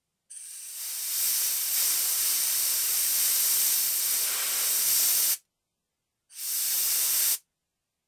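Compressed air hissing from a blow nozzle aimed straight into the balls of a full ceramic ball bearing: one long blast of about five seconds that builds over its first second, then a shorter blast of about a second, each cut off abruptly.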